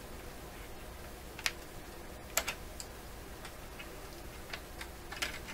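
Scattered light clicks and taps, about seven spread irregularly over the few seconds, over a faint steady low hum. They sound like small hand tools being handled on a valve radio chassis during repair work.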